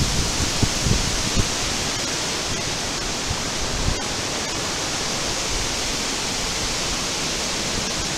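Steady rushing of storm wind through a woodland tree canopy, the leaves hissing evenly, with a few low buffets of wind on the microphone in the first second and a half.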